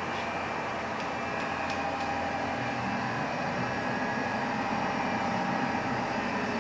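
Steady mechanical hum with a hiss from a powered-up Deckel FP5CC CNC milling machine standing idle, not cutting. A few faint clicks in the first two seconds.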